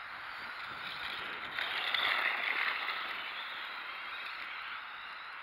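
Arrma Typhon 4S electric RC truck running across snow, a steady hissing rush from its motor and tyres in the snow that swells about one and a half seconds in and eases off again.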